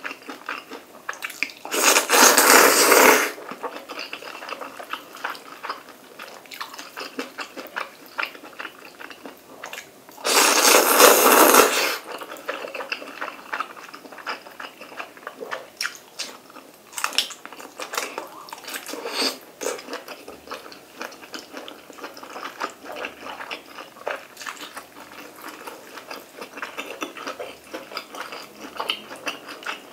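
Close-up eating sounds of a person eating instant black bean noodles: two long, loud slurps of noodles about two seconds and ten seconds in, with wet chewing and smacking between and after.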